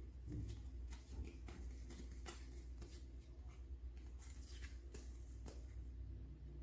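Stiff game cards handled and fanned through by hand: scattered light clicks and rustles of card stock over a low steady hum.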